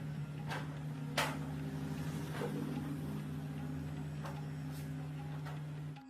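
A small engine running steadily at an even speed, with a few sharp clicks and knocks over it, the loudest about a second in. The running cuts off abruptly near the end.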